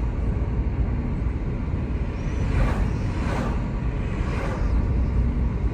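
Steady low engine and road rumble heard inside the cabin of a Dacia Logan Stepway running on LPG, under way on the road. Brief whooshes from oncoming cars passing come twice, about halfway through.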